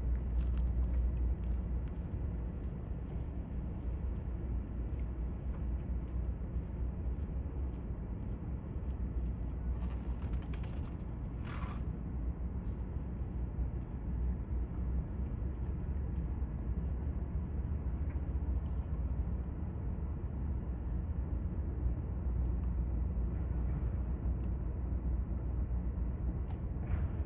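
Steady low rumble of harbour ambience, with faint scattered ticks and a brief hiss about ten seconds in.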